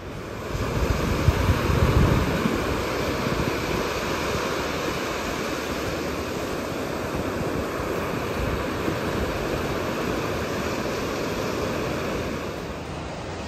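Ocean surf washing onto a sandy beach: a steady wash of noise, with a heavier low rumble about a second or two in.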